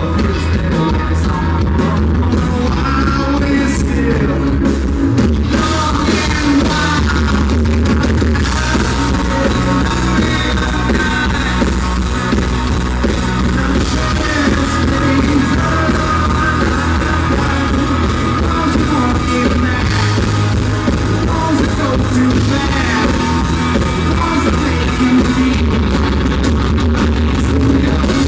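Live country-rock band playing loud, with drums, bass, guitar and a sung lead vocal. The recording is distorted and muddy, the bass heavy.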